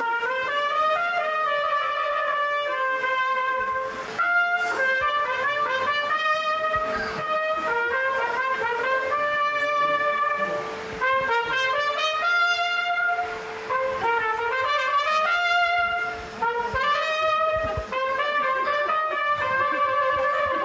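Trumpet-like brass instruments playing a stepping melody over a steady held note.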